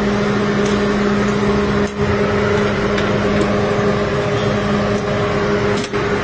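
Steady machine hum with a strong low drone, running loud and unbroken apart from two brief dips, with a few faint clicks.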